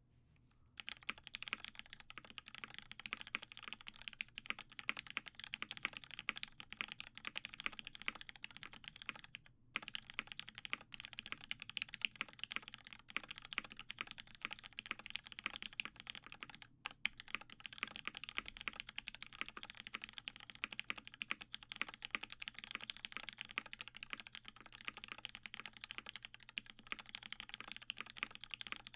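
Fast, continuous typing on a Matrix 8XV2.0 mechanical keyboard with lubed Hyperglide Cherry MX Black linear switches, an aluminium plate, a silicone case sheet and GMK keycaps: a dense run of keystroke clacks, broken by two brief pauses.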